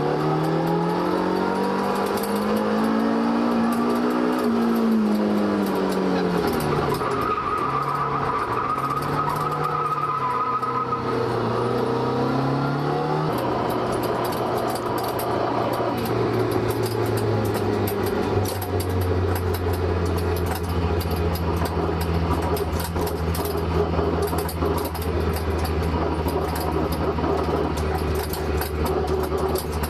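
Toyota AE85 Sprinter Trueno's four-cylinder engine, breathing through a rusted Trust exhaust with holes in it, revving up and down for about the first thirteen seconds. It then holds a steady drone for the rest.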